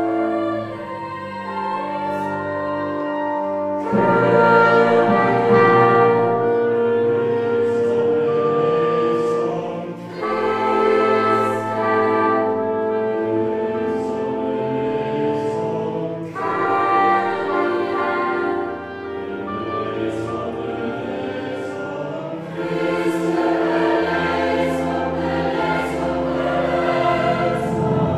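Choir singing sustained chords with a chamber ensemble that includes brass. New phrases enter strongly about every six seconds.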